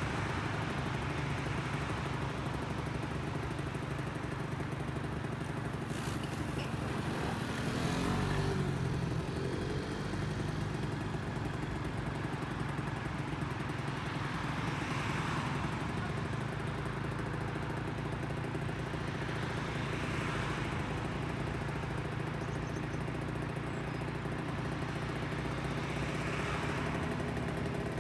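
A small engine running steadily, with a brief swell in level and pitch about eight seconds in.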